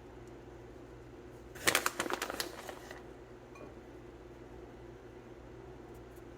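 Brief rustling and crinkling of food-prep handling, starting about two seconds in and lasting under a second, over a steady low background hum.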